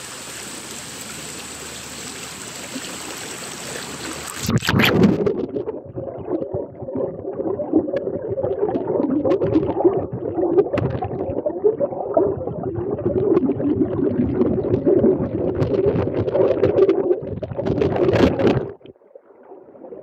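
Shallow river running over rocks as an even hiss. About four seconds in it changes suddenly to the same water heard underwater: a muffled, lower gurgling rumble with a constant crackle of small clicks. Near the end it cuts off sharply as the microphone comes back out of the water.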